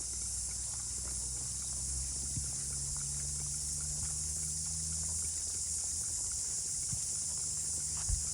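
Steady high-pitched drone of an insect chorus, such as crickets or cicadas, over a low steady rumble, with a single short knock near the end.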